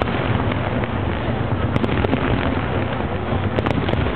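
Aerial fireworks going off in rapid succession: a continuous rumble of bursts laced with sharp crackling pops, with no pause.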